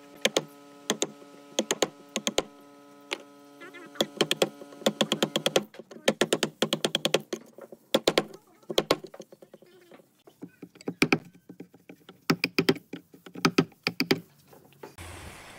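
Steel wood chisel cutting a shallow recess into a pine board: many sharp taps and cracks of the blade biting and chipping the wood, coming in quick clusters. A steady hum sits under the first five or six seconds.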